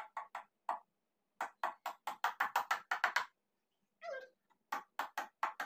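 A rapid series of sharp clicks, about six a second, in short runs, then a cat meows once, falling in pitch, near the end.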